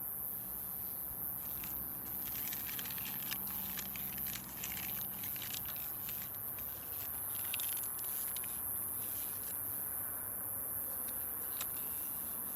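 Wood fire crackling, with many small sharp pops and snaps over a soft steady hiss; the pops come thickest in the first half.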